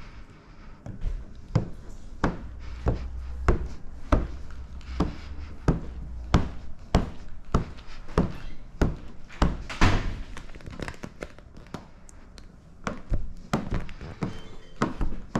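A plastic squeegee pushed in quick strokes over wet paint protection film on a car hood, each stroke giving a short knock, about one or two a second, with a brief pause about two-thirds of the way through. The strokes are pushing the soapy slip solution out from under the film.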